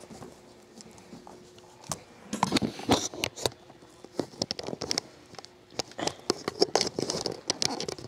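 Camera handling noise: a quiet start, then from about two seconds in a run of irregular clicks, knocks and rustles as a handheld camcorder is fitted onto a tripod.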